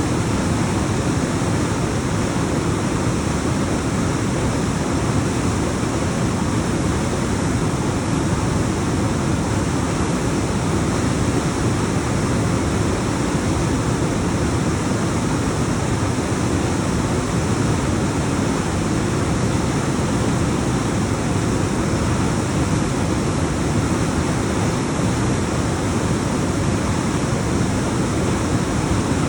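Alpine waterfall: water tumbling down rocks in a steady rush, heaviest in the low end.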